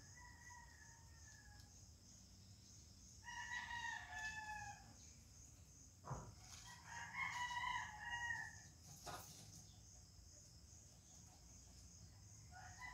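Roosters crowing faintly several times, each crow about a second and a half long, with a few seconds between crows.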